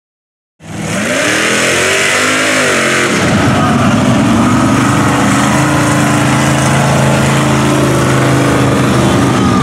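Engine of a lifted Chevrolet pickup on tractor tires, starting about half a second in, revving up and down and then holding a steady note as the truck drives along a mud-bog track.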